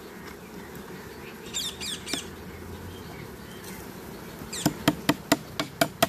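Honey bees humming steadily in an open hive box, with a few high chirps about a second and a half in. Near the end, a quick run of about seven sharp clicks as a metal hive tool knocks against the wooden frames.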